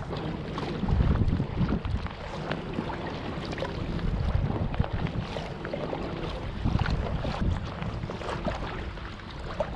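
Wind gusting on the microphone over open water, with small water splashes from packraft paddling. The gusts are heaviest about a second in and again near the middle.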